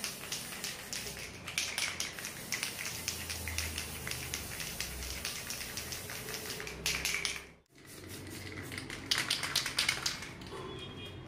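Aerosol spray paint can spraying black paint onto a steel axe in quick short bursts, a hiss broken into rapid ticking pulses. It drops out briefly about two-thirds through, then resumes.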